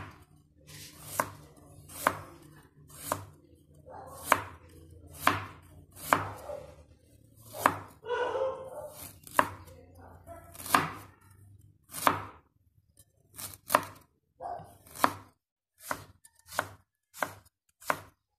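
Cleaver slicing fresh ginger on a bamboo cutting board: sharp knocks of the blade hitting the wood about once a second, quickening to about two a second in the last few seconds.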